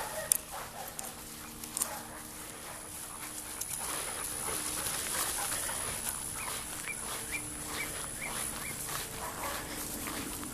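Yellow Labrador retrievers making small sounds as they move about, with two sharp clicks in the first two seconds and a faint steady high-pitched tone throughout.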